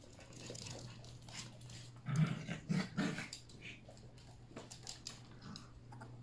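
Yorkshire terrier puppies at play: a dog gives three short gruff play-barks about two seconds in, with light clicks that fit claws on the wood floor, over a steady low hum.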